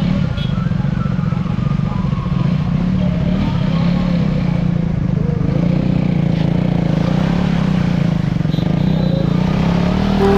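Motorcycle engine held at high revs with a wavering pitch while the rear tyre spins against the road in a burnout.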